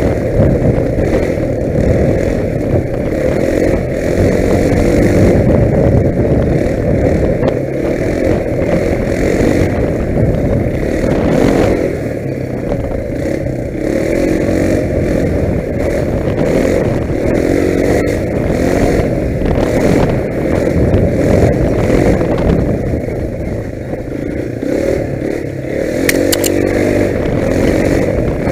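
Quad bike (ATV) engine running while riding a dirt track, the revs rising and falling with the throttle. A few sharp clicks or rattles come through near the middle and near the end.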